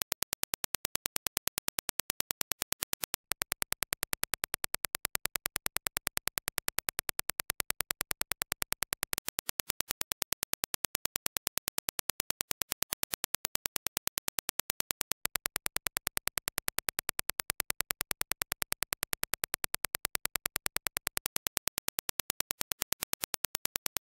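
Reference Dirac impulse test signal: a train of sharp, evenly spaced clicks, several a second, repeating steadily.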